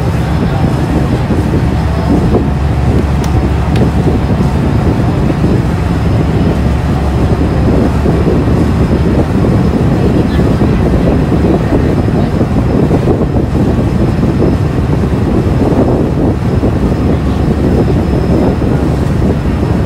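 Steady low drone of a river ferry's engine underway, with wind buffeting the microphone and the wash of water along the hull.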